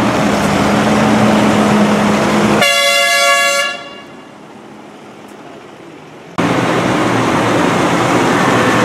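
Diesel engines of large farm tractors running as they drive past, with a steady low drone. About two and a half seconds in, a vehicle horn sounds once for about a second and fades. The sound then drops to a quieter hum until loud engine noise returns suddenly about six seconds in.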